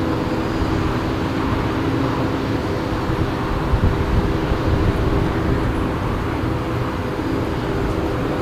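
Boeing 737-500's CFM56-3 turbofan engines running at low taxi thrust as the airliner taxis, a steady whine over a low rumble.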